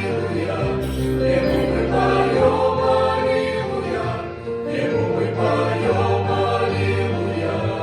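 A choir singing a song in long held notes and chords, with low notes sounding underneath.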